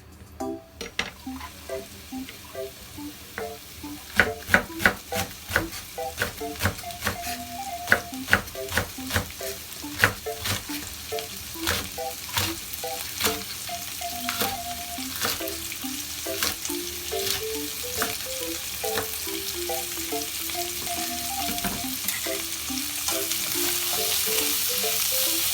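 Stir-fry sizzling in a frying pan, with a spatula clicking and scraping against the pan many times. The clicks are densest in the first half, and the sizzle grows louder toward the end. A light background melody plays throughout.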